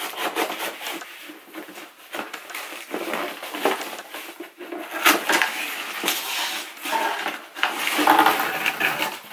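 Cardboard shipping box being opened by hand, its flaps and packaging pulled and handled, with irregular rustling, scraping and crackling clicks throughout.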